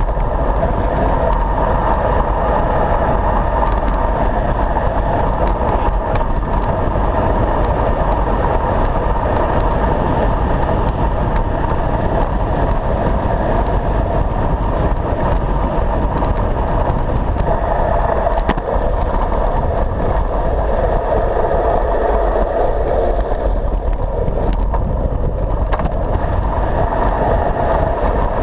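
Steady loud wind rush buffeting a handlebar-mounted camera, with tyre hum on tarmac, as a road bike descends a mountain road at speed; a few faint clicks and knocks.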